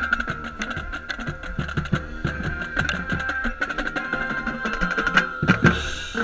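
Marching band playing: rapid drumline strokes, with close bass drum hits, over a sustained wind or brass note.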